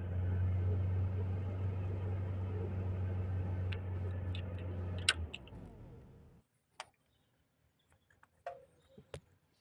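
VW Passat B5 engine idling steadily, then a sharp click about five seconds in as it stops and the sound dies away. A few faint clicks follow in near quiet.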